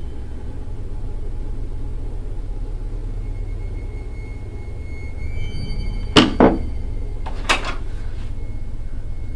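Knocking on a closet door from the inside: two quick knocks about six seconds in and another about a second later, over a steady low hum.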